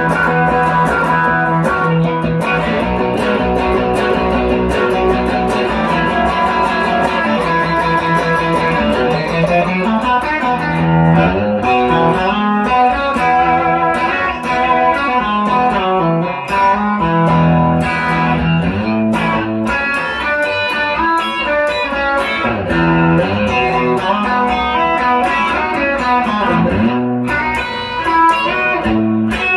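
A 1957 Fender Esquire fitted with a 1950s Fender lap-steel flat-pole pickup, played clean through a 1965 Fender Deluxe Reverb. It starts with held chords, then moves to busier picked lines with moving bass notes from about ten seconds in.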